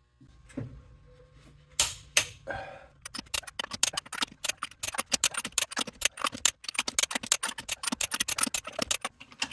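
Ratchet wrench clicking rapidly while lug nuts are run down on a truck wheel, after a few metallic knocks.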